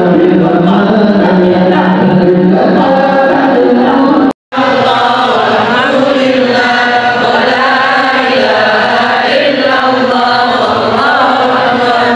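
Voices chanting an Islamic devotional prayer together, the melody rising and falling. The sound cuts out briefly about four seconds in, then the chanting goes on.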